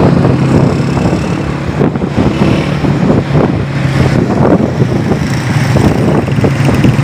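Small motorcycle engine running at a steady speed with a steady low drone, heard from the bike while riding through street traffic, with wind buffeting the microphone.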